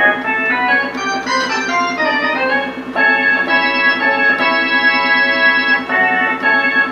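Roland D-50 synthesizer playing its rock organ patch: a quick run of notes, then held organ chords from about three seconds in.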